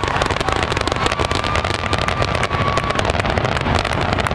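Aerial fireworks in a finale barrage: many shells bursting in rapid, overlapping bangs and crackles with no break.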